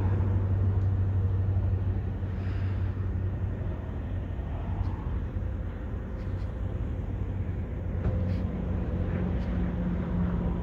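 Steady low rumble of vehicle engines, with a deep engine drone that fades after the first few seconds and a second, higher drone that comes in near the end.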